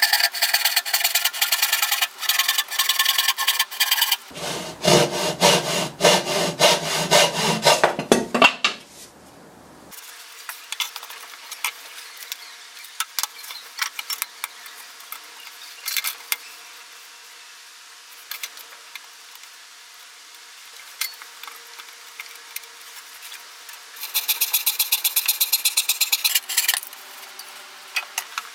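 A hand saw cutting a spruce board with rhythmic rasping strokes, in bursts. A louder, fuller stretch comes about four to eight seconds in. Then there are quieter scattered knocks of wood being handled, and a short fast run of even strokes near the end.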